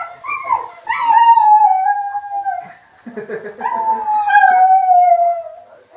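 Border terrier howling: a couple of short yips, then two long howls about a second apart, each sliding slowly down in pitch.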